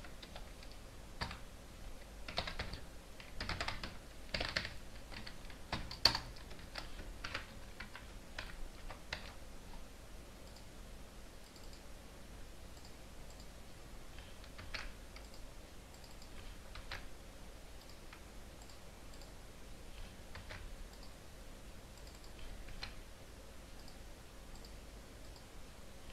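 Computer keyboard typing in quick bursts of keystrokes, with one sharper, louder click about six seconds in. After about ten seconds the typing stops and only a few scattered single clicks follow.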